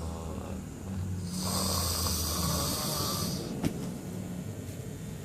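A man snoring heavily in deep sleep: one long rasping snore from about a second in, lasting about two seconds, with quieter snoring around it. A short sharp click comes just after it.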